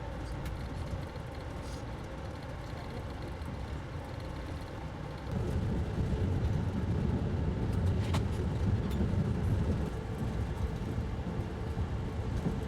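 Steady low rumble of a motor vehicle, stepping up in level about five seconds in, with a faint click about eight seconds in.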